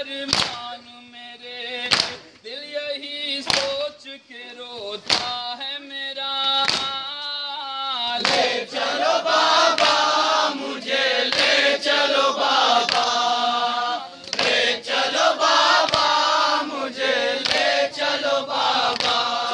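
Men's voices chanting a nauha lament, with hands striking chests in time (matam), one stroke about every one and a half seconds. From about eight seconds in, many more voices join in a loud chorus.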